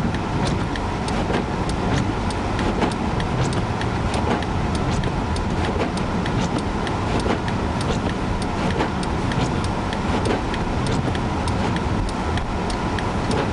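Car driving on a snow-covered highway, heard from inside the cabin: steady road and engine noise, with frequent irregular sharp ticks.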